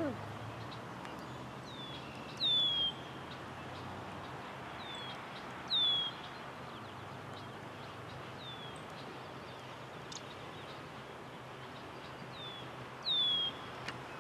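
A bird repeating a short, falling whistled call, each one led by a fainter note, three times loudly and a few times softly, over a steady faint background hiss.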